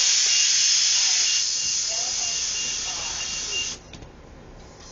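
A bus's compressed-air system venting a loud, steady hiss that fades slightly and cuts off suddenly near the end, as when air brakes release or the bus kneels.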